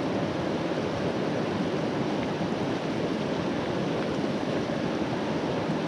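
Shallow mountain river rushing over a rocky bed, a steady rush of water close by.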